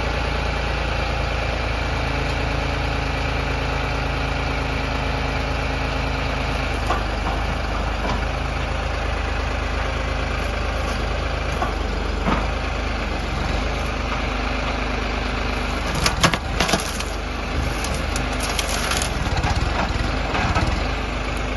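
A heavy machine's engine running steadily, with a cluster of sharp cracks about sixteen seconds in as wood splinters and breaks.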